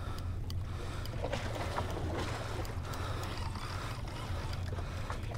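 Steady low drone of a boat engine, even throughout, with a faint wash of wind and water over it.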